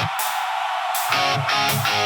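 Rockabilly music: an instrumental passage led by strummed electric guitar, with bass, and no singing.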